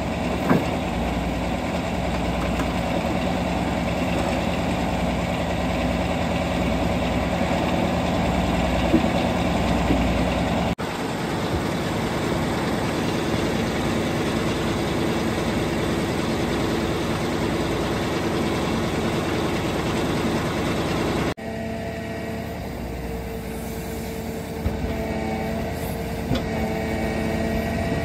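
Heavy vehicle engine running steadily, heard in three stretches that cut abruptly into one another, with a few brief knocks.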